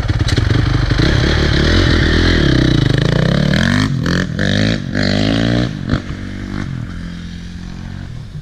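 Honda CRF450R motocross bike's single-cylinder four-stroke engine revving hard as the bike pulls away, its pitch climbing several times with brief breaks between climbs, like upshifts. Near the end the engine drops in pitch and fades as the bike rides off.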